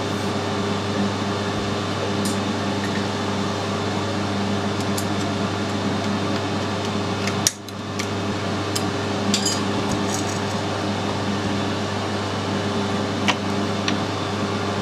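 A steady electric machine hum, with a few sharp metal clicks and taps as a lathe cutting tool is handled and set in the toolpost.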